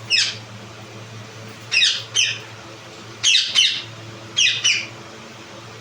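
Ringneck parakeet giving short, harsh, falling squawks, mostly in quick pairs, repeated about every second and a half, over a steady low hum.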